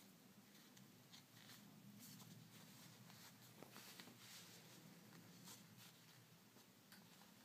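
Near silence: faint rustling and small ticks of cotton fabric being folded and pinned by hand, over a faint steady room hum.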